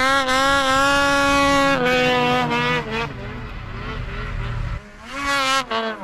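Snowmobile engine running at high revs at a steady pitch, then dropping in pitch and fading through the middle. Near the end it revs up and down again.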